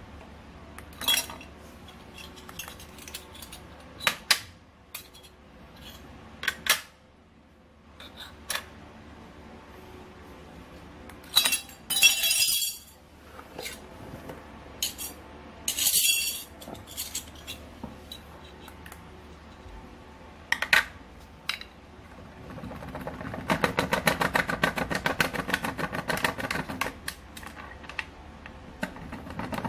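Thin metal cut-outs clinking and clattering against a metal licence plate as they come off and are put back on a magnetic plate frame: scattered sharp clicks, with two louder clattering spells about twelve and sixteen seconds in. From about two-thirds of the way through, a fast rattling buzz goes on to the end.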